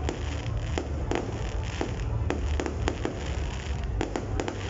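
Fireworks going off: about a dozen sharp bangs and pops at irregular intervals, over a steady low rumble.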